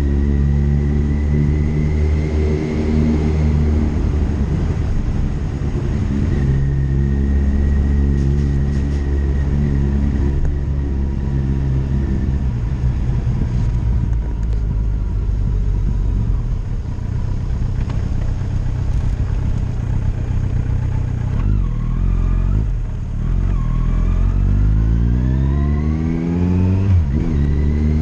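Motorcycle engine running steadily at road speed, heard from the bike. In the last several seconds the revs climb and drop a few times as it accelerates.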